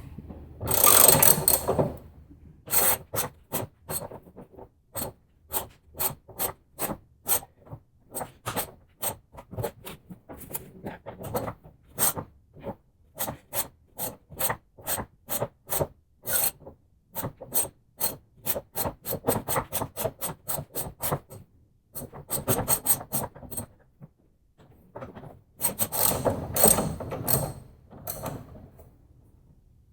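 Socket ratchet wrench clicking as a front suspension mounting nut is backed off. The clicks come in single strokes about every half second, with a quick run of fast ratcheting near the start and another near the end.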